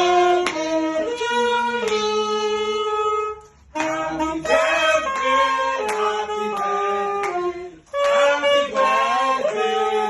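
Background music: a melody of held, pitched notes, breaking off briefly twice.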